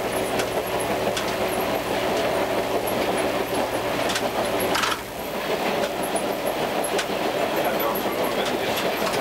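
Suburban railcar running at speed, heard from inside the driver's cab: steady running noise with wheels clicking now and then over the rails. About halfway through, the low steady hum underneath drops away with a slight dip in loudness.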